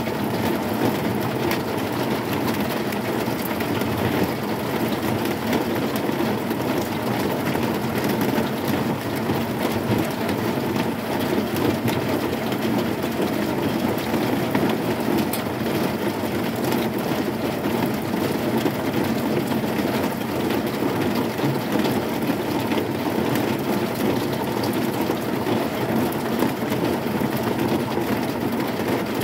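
Heavy rain falling on a corrugated zinc sheet roof: a dense, steady rush of drops, heaviest in its low rumble.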